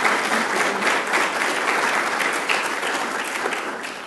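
Audience applauding steadily, a dense patter of many hands clapping that begins to die away near the end.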